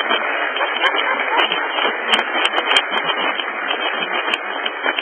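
Large congregation applauding: a steady wash of many hands clapping.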